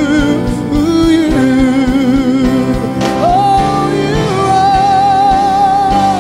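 Gospel singing with a band: a sung line holding long notes with vibrato over sustained chords and a steady drum beat.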